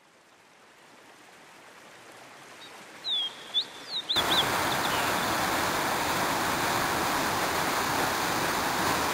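Irrigation canal water pouring out of a cave mouth as a small waterfall: a loud, steady rush that cuts in abruptly about four seconds in. Before it, a fainter rush slowly swells, with a few short bird chirps just before the cut.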